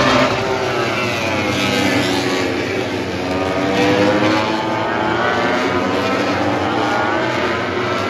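A pack of MotoGP race bikes, 1000 cc four-cylinder four-stroke engines, several at once, rising and falling in pitch as they brake, shift and accelerate through the corners. The engine notes overlap and get louder about four seconds in, as more bikes arrive.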